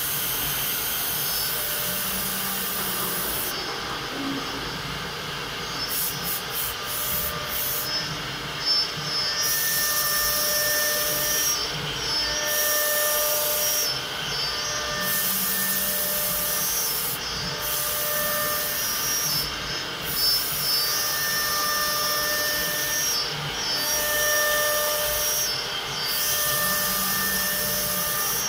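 Multi-spindle CNC router cutting a wooden panel: a steady spindle and cutting noise, with a whine that comes and goes every couple of seconds.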